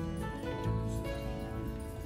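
Background music: gentle instrumental with held notes that change every half-second or so.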